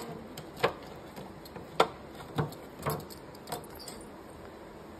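Clear plastic cake container clicking and knocking against a marble floor as a kitten eats from inside it and pushes it about: about six sharp, irregular clicks in the first three and a half seconds, then quieter.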